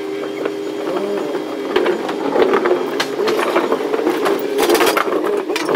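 A pallet jack with a loaded pallet rolling across the box truck's floor: a continuous rattle of the wheels and frame with squeaking and scattered knocks, heaviest around the fifth second.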